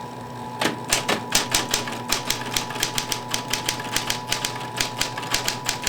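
Typewriter being typed on: a quick, slightly uneven run of key strikes, about five a second, starting about half a second in, over a steady electrical hum.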